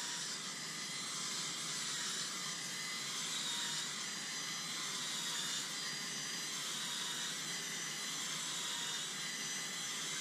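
Cordless drill spinning a garden auger, boring planting holes in soil, with a steady motor whine that shifts slightly in pitch as it works.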